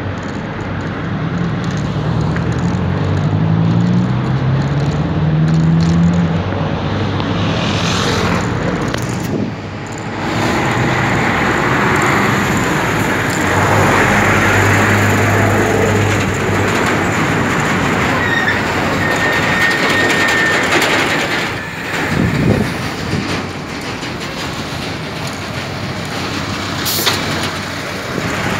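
Street traffic heard from a moving bicycle, under a loud, steady rush of wind on the microphone. In the first few seconds a motor vehicle's engine climbs in pitch twice as it accelerates.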